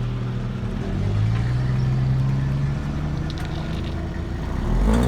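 2018 Subaru BRZ's 2.0-litre flat-four running steadily, its note stepping up slightly about a second in, with a few faint short high creaks or ticks near the end: the creak reported from the driver's-side rear after an alignment.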